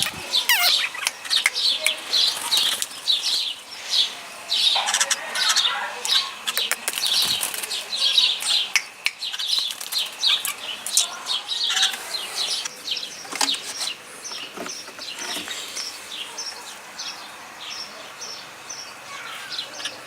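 Caged bulbuls chirping in quick, busy runs of short high notes, mixed with the flutter of wings and small knocks as the birds move about a breeding cage.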